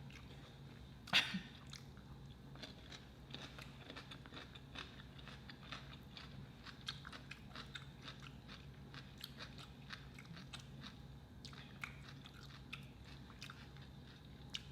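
Close-miked chewing and biting of food, with many small wet clicks and one sharper, louder bite or crunch about a second in.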